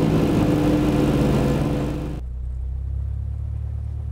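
Lockheed Super Constellation's Wright R-3350 radial engines heard from inside the cabin: a loud, steady drone with a steady hum in flight. About two seconds in it changes abruptly to a quieter, dull low drone of the engines running at low power with the aircraft on the ground.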